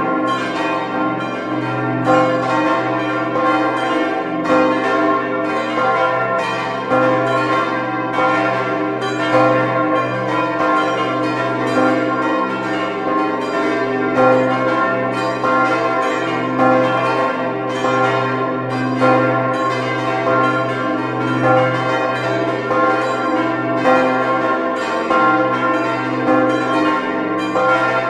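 Church tower bells ringing in a full peal: several bells struck over and over, their strikes overlapping continuously, with a deep hum held steady beneath.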